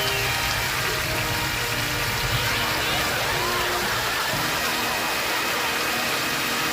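Steady rain falling, an even hiss, with faint tones from a television show's soundtrack underneath.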